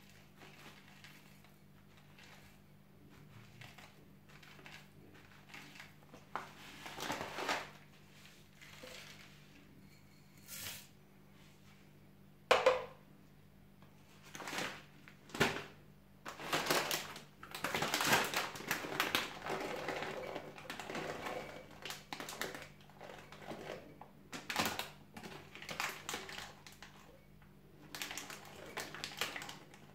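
Plastic food packaging rustling and crinkling as dry rolled oats and then raisins are poured out of their bags into a small glass, with a few sharp knocks of glass on the counter, the loudest about twelve seconds in. A faint steady low hum sits underneath.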